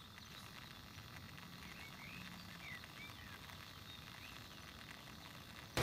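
Quiet night-time forest ambience: a low steady rumble with a few short chirps from small night creatures in the middle.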